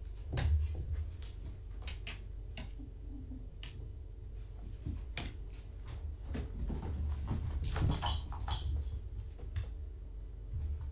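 Kittens moving about and playing: scattered light taps and scuffles from paws and toys, thickest about eight seconds in, over a steady low room hum.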